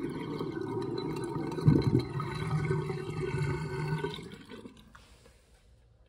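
Water draining down a sink's perforated stainless strainer, gurgling, with one loud gulp about two seconds in; the draining tails off about four seconds in and stops.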